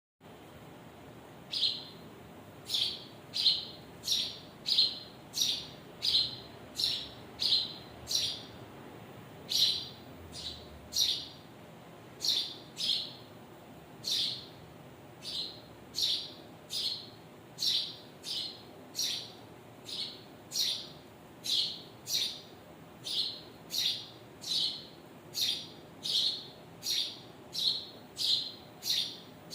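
A bird chirping over and over: a short, high, slightly falling chirp repeated at an even pace, about three every two seconds, starting about a second and a half in.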